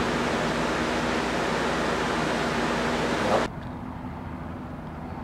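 Steady rushing noise with a faint low hum, cutting off abruptly about three and a half seconds in; after that comes a quieter outdoor background.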